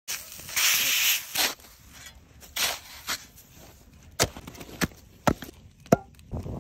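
A long hissing swish about half a second in, then a string of short, sharp knocks and crunches about half a second to a second apart: a knife and a shovel being handled and stuck into a wooden board and into snow.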